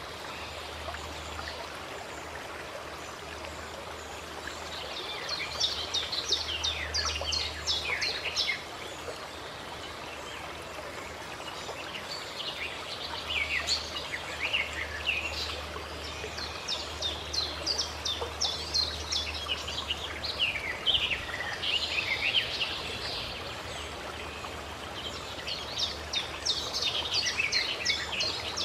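Songbirds singing in several bouts of quick, high, downward-sliding notes over the steady rush of a stream.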